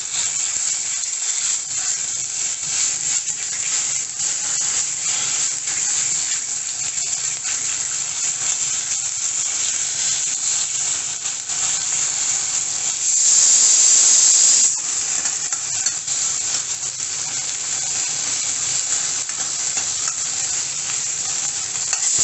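Garlic paste and cumin seeds sizzling in hot oil in a steel kadhai, with a steel ladle scraping and tapping the pan as it is stirred. About thirteen seconds in, the hiss grows louder for a second and a half.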